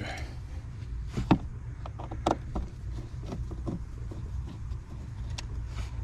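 Scattered light clicks and taps of a bolt being worked loose and handled among the interior trim and brackets, at irregular intervals rather than a steady ratchet rhythm, over a steady low hum.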